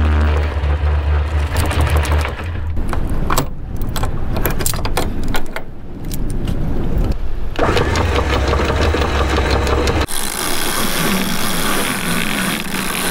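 Electric anchor windlass hauling chain in over the bow roller. Its motor hums steadily for a couple of seconds, stops for a stretch of metallic clinks and knocks of chain handling, then runs again for a couple of seconds. From about ten seconds in, a sheet winch clicks rhythmically as its handle is cranked.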